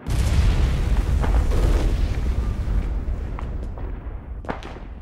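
A sudden deep boom that rumbles and slowly dies away over several seconds, followed near the end by a couple of sharp knocks.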